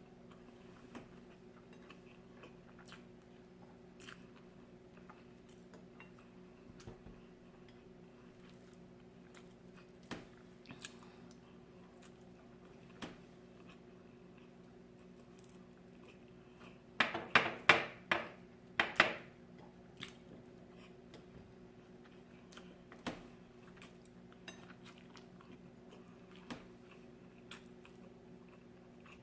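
A person chewing and biting crisp fried fish, eaten by hand: scattered quiet chewing clicks, with a short run of loud crunches a little past halfway, over a steady low hum.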